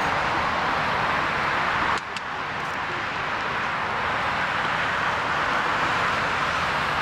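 Steady jet engine noise from an Airbus A380's four Rolls-Royce Trent 900 engines at taxi power as the airliner rolls slowly. The level drops suddenly about two seconds in, then builds back.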